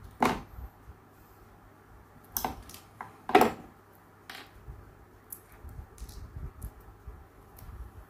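A few sharp clicks and light knocks of small hard objects being handled, the loudest about three and a half seconds in, then fainter low rumbling and ticks, over a faint steady low hum.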